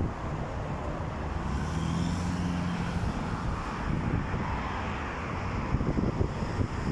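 Road traffic: cars driving past on a busy multi-lane road, a steady rumble of engines and tyres. A low engine hum stands out for a couple of seconds in the middle.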